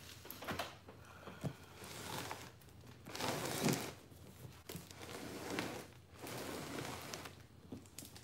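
Hands rubbing and sliding over a large cardboard box wrapped in plastic packing tape, and the box shifting across a wooden table: several bursts of rustling and scraping with a few light knocks.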